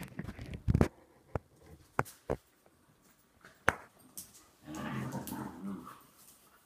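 A Teckel puppy and a German shorthaired pointer play-fighting on a stone-tiled floor: sharp clicks and knocks of paws and claws on the flagstones. Near the end one of the dogs vocalises in play for about a second and a half.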